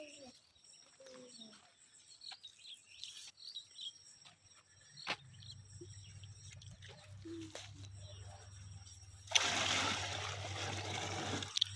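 Water poured and splashing for about two seconds, near the end, over faint bird chirps outdoors.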